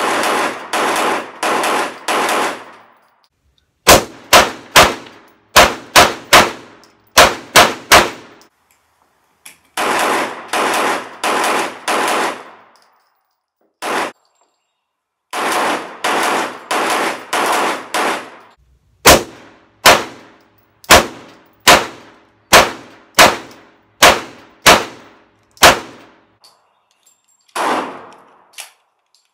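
9 mm STI 1911 pistol fired in strings of rapid shots, each a sharp crack with a short ringing tail. Between the strings come groups of four longer, duller bangs about half a second apart.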